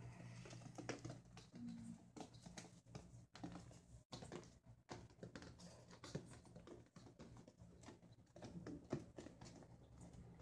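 Faint scratching and tapping of puppies moving about and being handled, over a low steady hum.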